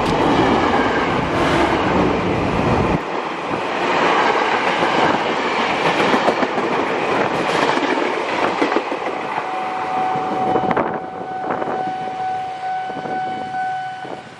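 KRL Commuter Line electric train running on the track, its wheels clattering over loud running noise, deepest in the first few seconds. About ten seconds in, a steady high tone starts and holds.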